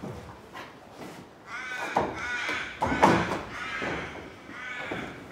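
A crow calling, a series of drawn-out, wavering caws repeated about once a second.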